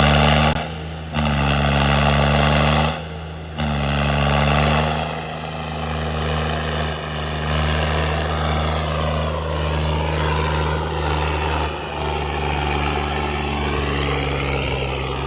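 Tractor diesel engine running hard at high revs, with a loud steady drone. It dips briefly twice in the first few seconds, then holds steady.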